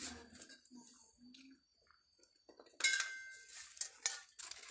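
Aerosol spray-paint can hissing in a short burst that starts about three seconds in and tails off, with a brief second spray near the end; a single click comes at the very start.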